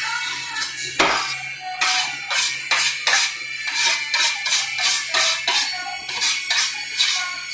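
Background music with a steady, quick beat of tambourine-like percussion.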